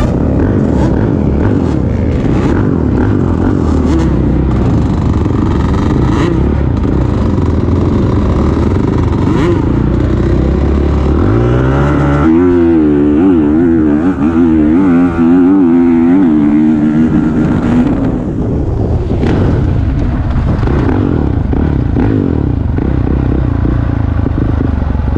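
Dirt bike engine running hard on a dirt track, heard from the bike itself. About halfway through the revs climb, then the pitch wavers up and down for several seconds as the throttle is worked.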